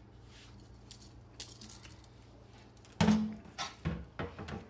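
Hard metal objects clattering as they are handled: faint clicks at first, then a sharp loud clack with a short ring about three seconds in, followed by several lighter knocks and clinks.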